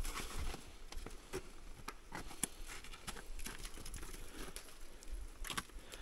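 Irregular light clicks, taps and crunches, a few a second: people moving on foot over glacier ice and stones, with their gear knocking.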